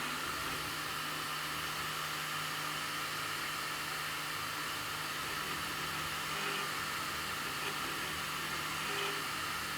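Anycubic i3 Mega 3D printer running with a steady, high whirring hiss over a low hum. This is the screeching noise the owner is recording.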